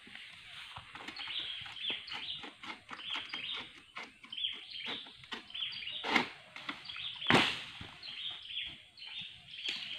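Long-poled harvesting sickle cutting at oil palm fronds: irregular rustling and cracking of the fronds, with a louder crack about seven seconds in as a frond is cut loose. Birds chirp throughout.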